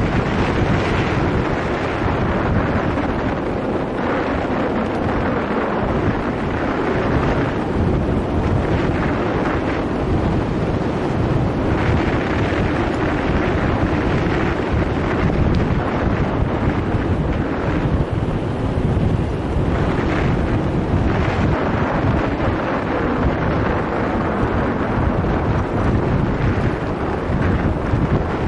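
Wind rushing over the microphone of a bicycle-mounted action camera while riding: a loud, steady rush that swells and eases slightly.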